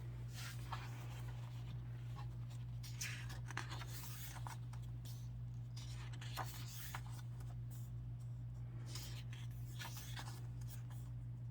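Pages of a glossy album photo book being turned and handled, giving soft, intermittent paper rustles over a steady low hum.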